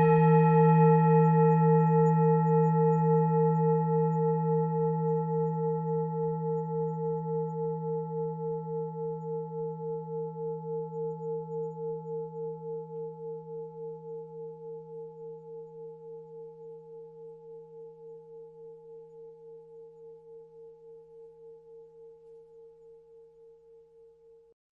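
Tibetan singing bowl ringing on after a single strike: a few steady tones with a slow, even pulsing, fading gradually until they die away near the end.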